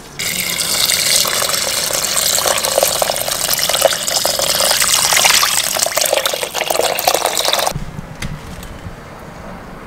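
Water pouring in a steady stream into a stainless steel pot of chicken and sliced onions, filling it for soup; the pour stops suddenly about three-quarters of the way through.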